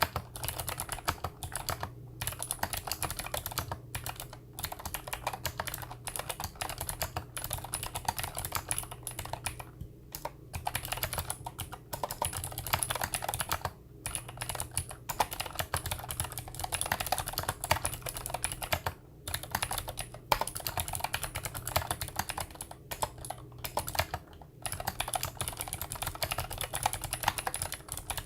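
Continuous typing on a mechanical keyboard with Gateron Blue clicky switches: rapid, crisp clicks in fast runs, broken by short pauses every few seconds.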